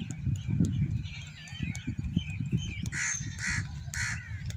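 Three harsh crow caws, about half a second apart, near the end, over a low rumble of wind buffeting the microphone. Small birds chirp faintly earlier on.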